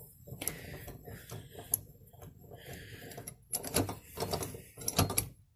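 Light, irregular metallic clicks and rattles as the steel screw of a small 3½-inch bench vise is unscrewed and drawn out by hand, with a few sharper ticks in the second half.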